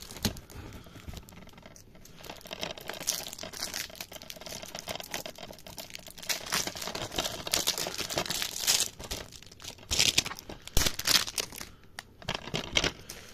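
Wrapping being torn and crumpled off DVD cases by hand: irregular crinkling and tearing that comes in bursts, louder about a third of the way in and again in the second half.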